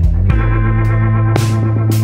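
Background instrumental music, with a guitar over a held bass note.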